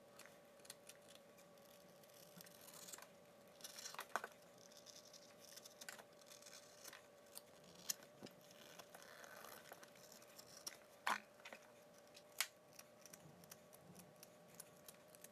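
Knife cutting through thick sole leather: faint, irregular scraping strokes with sharp clicks and rustles as the leather is worked and turned.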